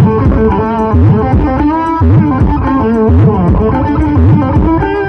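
Music played loud through a large outdoor sound-system speaker stack during a sound check: a plucked-string melody with bending notes over a deep bass thump about once a second.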